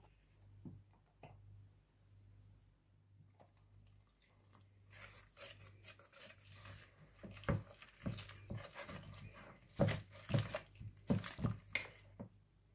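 A wire whisk stirs cornstarch and water into a batter in a plastic bowl. After a few quiet seconds with a couple of light taps, there is irregular scraping and clicking. This gets louder about halfway through, with sharp knocks of the whisk against the bowl.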